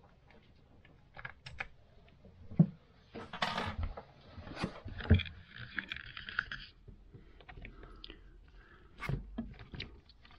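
Scattered clicks, knocks and scraping from hands handling the plastic anti-siphon (vacuum) valve and its fittings in a sailboat's engine compartment. There is a sharp knock a little over two seconds in, and a stretch of rustling and scraping around the middle.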